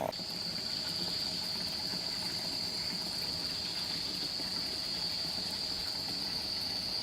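Crickets trilling: one steady, high-pitched trill that holds unchanged throughout.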